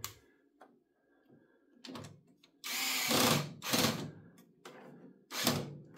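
Cordless electric screwdriver running in short spurts as it drives a screw home to fasten a printer's fuser unit back in place, the longest run lasting about a second near the middle.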